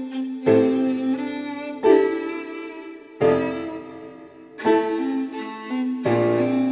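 Classical music: a violin melody over piano chords, a new chord struck about every second and a half.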